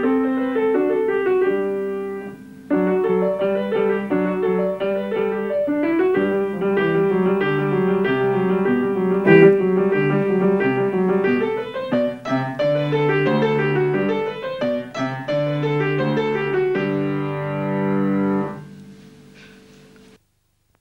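Solo piano playing a classical sonata, a melody over a moving bass line. Near the end the playing stops on a held chord that dies away.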